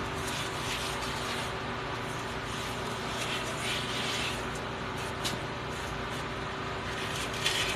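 Steady mechanical hum of workshop background noise, with a few faint clicks and rustles of handling.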